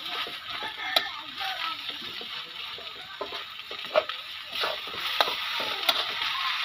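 Rice vermicelli sizzling in a steel wok while it is stirred and turned with metal utensils. There is a steady frying hiss, soft scraping knocks, and a few sharp clinks of metal on the wok, one about a second in and several more from about four seconds on.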